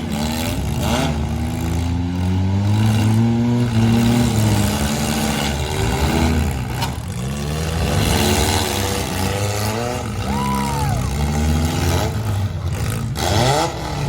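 Several four-cylinder demolition-derby cars' engines running and revving at once, their pitch rising and falling as the drivers accelerate and back off.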